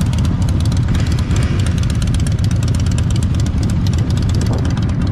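Motorcycle engine idling at a standstill, a steady low rumble with rapid even firing pulses.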